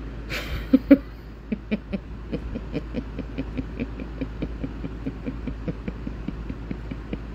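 A woman laughing softly and at length: a quick, even run of breathy "ha" pulses, about five a second, with two stronger ones about a second in, fading toward the end.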